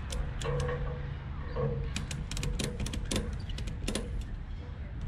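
Irregular sharp clicks and light rattles of kayak gear being handled and secured, over a low wind rumble.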